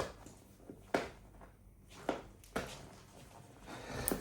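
Hands working at a parcel's packaging: a handful of short, sharp knocks and rustles, roughly one a second.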